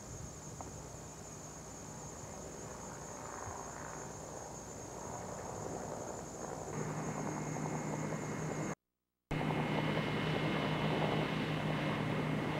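Aircraft engine noise growing louder, with a steady low hum coming in about seven seconds in. The sound drops out completely for half a second after about nine seconds, a break in the recording, and comes back louder.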